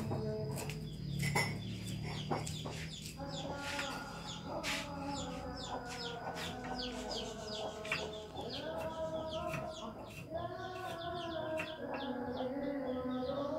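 Chickens clucking and calling, some with long drawn-out notes, mixed with short high chirps. A few sharp knocks from a knife cutting greens on a wooden board.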